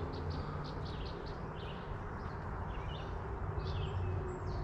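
Outdoor wildlife ambience: short high chirps repeat about four times a second at first, then come singly now and then, over a steady low background rush.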